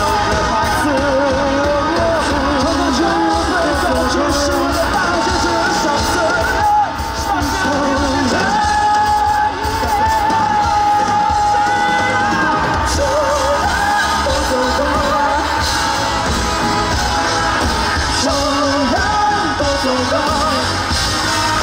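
Live pop song performance: a singer's voice with vibrato over band accompaniment, holding one long note for several seconds near the middle.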